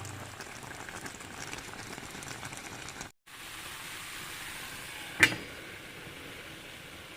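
Food sizzling and crackling as it fries in oil in a pan. It breaks off briefly about three seconds in, and there is one sharp knock, like a utensil striking the pan, a little after five seconds.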